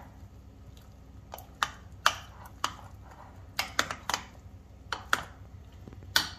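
Metal spoon stirring thick batter in a glass baking dish, clinking against the glass in about ten sharp, irregularly spaced taps.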